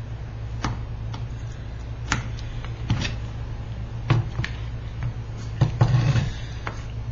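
Irregular light clicks and taps of hand tools against stained glass and the workbench during repair work, about a dozen spread unevenly, a few bunched together near the end. A steady low hum runs beneath them.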